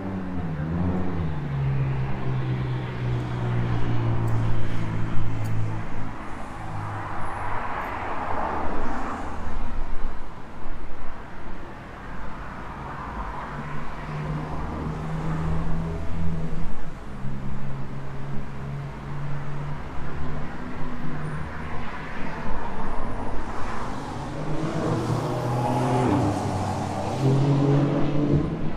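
City road traffic: vehicle engines running, with the engine note rising as vehicles accelerate near the start and again near the end, and a vehicle passing by about eight seconds in.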